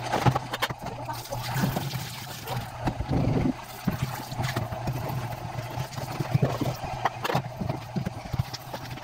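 Dishes being washed by hand in a stainless steel sink: a thin stream of tap water splashing onto a plastic tray, with repeated knocks and clatters of the tray and dishes against the sink. A steady low hum runs underneath.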